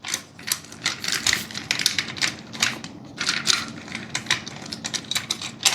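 Plastic S-Wave curtain gliders and buckles clattering along an aluminium curtain track: a fast, irregular run of small clicks and rattles.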